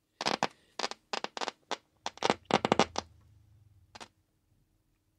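A quick run of sharp clicks and crackles over about three seconds, then one more click about four seconds in: multimeter probe tips and a test wire being handled against a transistor radio's circuit board.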